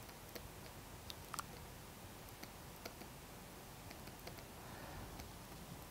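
Faint, scattered clicks and taps of a stylus on a writing tablet during handwriting, about a dozen, over low background hiss.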